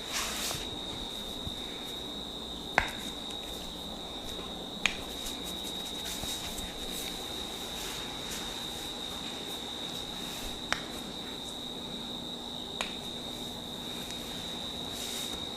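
Four sharp cracks from a cracking massage (hair, knuckle or joint cracks), spaced a few seconds apart, the first two loudest. Under them runs a steady high-pitched whine and a light rustle of hands on skin and hair.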